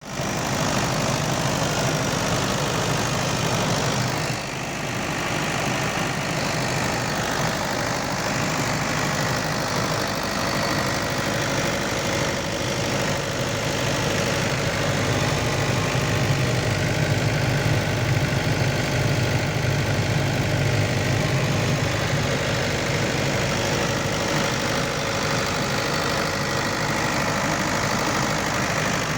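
Mahindra generator's engine running steadily, with a small dip in level about four seconds in.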